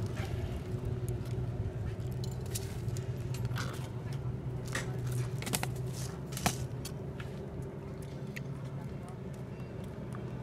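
Street background noise: a steady low traffic and engine rumble, with a few short light clicks and taps scattered through the middle.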